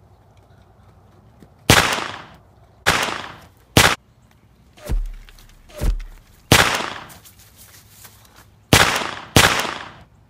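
A series of six sharp gunshot-like bangs, each trailing off over about half a second, with two softer swelling sounds around the middle.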